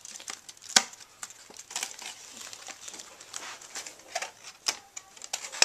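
Plastic wrapping and foil booster packs crinkling and rustling as hands open a Yu-Gi-Oh booster box, with scattered sharp snaps and clicks, the loudest just under a second in.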